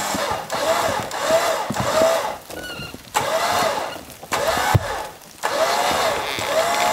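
A truck's winch pulling a small wooden shed across the ground in short pulls. It runs steadily, stops briefly three times, and gives repeated short squeals that rise and fall.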